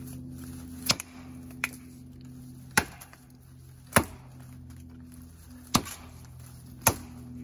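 Small hand-forged bushcraft axe chopping into the base of a standing alder: six sharp strikes about a second apart, the second one lighter, over steady background music.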